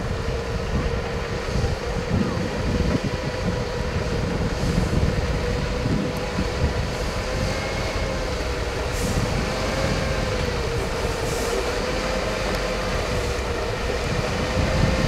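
An 8x8 trial truck's engine running steadily as the truck crawls down a steep, rutted dirt slope, a low rumble with a whine that wavers slightly in pitch.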